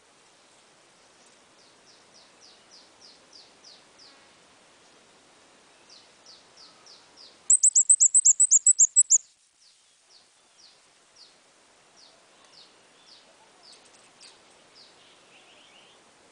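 A songbird sold in Vietnam as the 'ốc mít' calling in a lure-call recording: a string of short, falling chirps about three a second. About halfway through comes a much louder, rapid burst of about ten high chirps.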